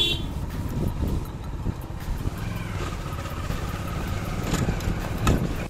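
A vehicle's engine running steadily as it drives off, a low rumble.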